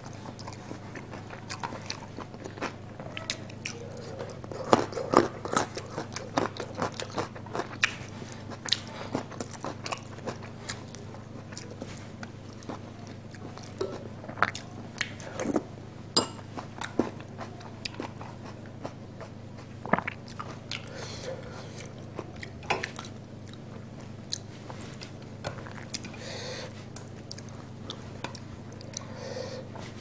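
Close-up chewing and biting of chicken curry and rice eaten by hand: wet mouth smacks and crunching, with short sharp clicks scattered throughout, over a steady low hum.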